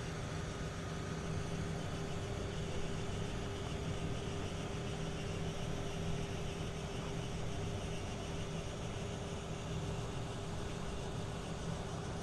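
Steady vehicle rumble with a constant low machine hum, holding even throughout with no distinct events.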